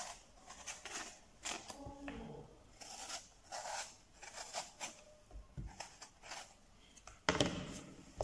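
Small kitchen knife peeling the skin off a raw eggplant: a run of short, irregular scraping strokes.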